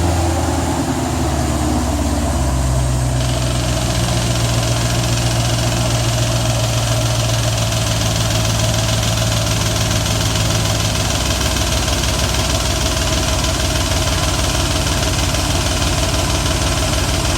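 BMW M60B40 4.0-litre V8 idling just after its first start with a new timing chain tensioner that was not primed with oil; the sound is typical of the tensioner filling up with oil. The note settles about eleven seconds in.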